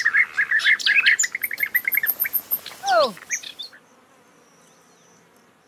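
A flock of bee-eaters calling: a dense run of short, rapid chirps, then one falling call about three seconds in. The calls stop a little before four seconds in.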